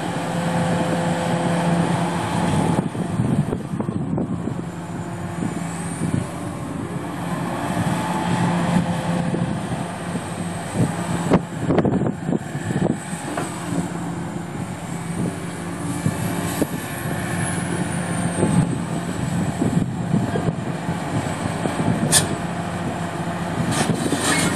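Komatsu PC400LC-7 excavator's six-cylinder turbo diesel engine running, its level swelling and easing, with a thin high whine that rises and falls in pitch. A few sharp metallic clunks come about halfway through and again near the end.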